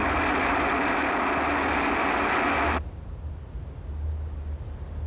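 A rocket motor firing: a steady, loud rush of noise that cuts off abruptly about three seconds in, leaving a low hum. It is heard through an old, narrow-band film soundtrack.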